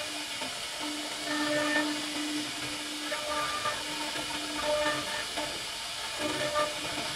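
CNC router spindle running with a profile cutter routing grooves into a wooden panel: a steady hiss with a humming tone that breaks off and comes back a few times as the cutter moves through the wood.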